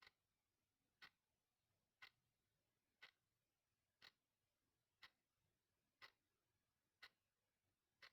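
Clock ticking quietly and evenly, one sharp tick each second.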